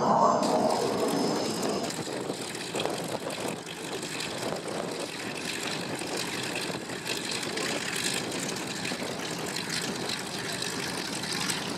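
Radial-engined propeller trainers idling and taxiing, a steady rough engine and propeller noise.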